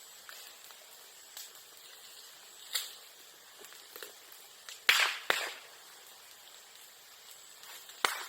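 Bamboo and bamboo grass burning in a bonfire, popping like firecrackers as the hollow bamboo sections burst in the heat. A loud pair of cracks comes about five seconds in, a smaller crack near three seconds and another near the end, with faint crackling between.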